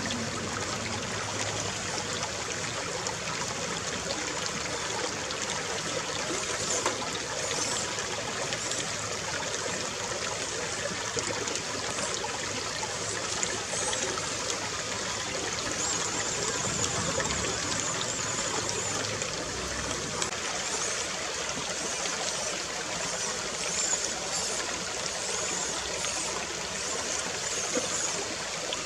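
Shallow creek water trickling and flowing steadily over stones.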